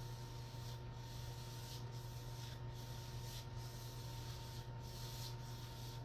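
Paint roller being worked over a wall in repeated strokes, a soft rubbing hiss that swells and fades about once a second, over a steady low hum.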